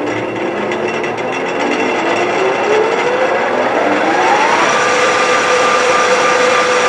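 LeBlond Regal 19-inch lathe's geared headstock spinning up to a high spindle speed: a whine rising in pitch for about four and a half seconds, then holding steady as the machine runs at speed.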